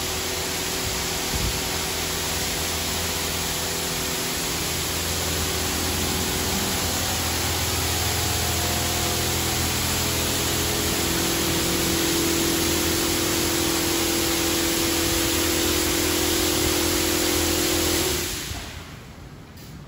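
Ryko Radius HT touchless car wash blasting high-pressure water at a car: a loud, steady hiss of spray over the hum of the pump and the moving overhead arm. A steady tone in the machinery grows louder in the second half, and the spray cuts off sharply near the end.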